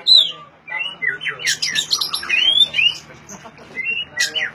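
Oriental magpie-robin (kacer) singing: a fast run of clear whistled notes and short slurred trills, with a brief lull about three seconds in before it starts again.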